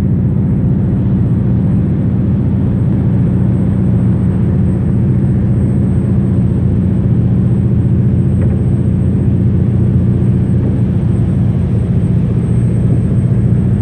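A fishing boat's engine running steadily, heard on board as an even low drone that holds the same level throughout.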